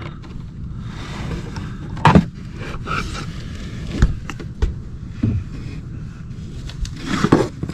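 Handling noise while working a steel slide-out cable by hand: a few scattered knocks and scrapes, the sharpest about two seconds in and again about four seconds in, over a low steady hum.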